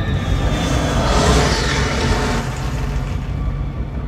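Battle sound effects from a WWII air-raid film soundtrack, played through only the surround and overhead speakers of a home theater (B&W CT 7.4s running full range, no subwoofer) and heard in the room. A deep, steady rumble lies under a loud swell of noise that rises about a second in and eases off over the last second or so.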